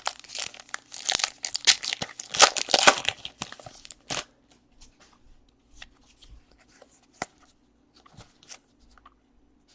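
Trading card pack wrapper being torn open and crinkled, a dense crackling rip for about four seconds, followed by faint scattered clicks of cards being handled.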